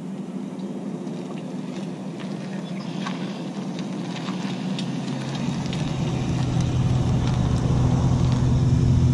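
An engine running with a low, steady hum that grows steadily louder, strongest from about halfway through.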